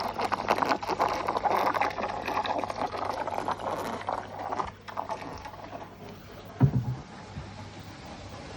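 Water gurgling and splashing in a saltwater aquarium's drain plumbing, a dense irregular bubbling that eases off after about five seconds. Then comes one low thump, followed by a steady low hum.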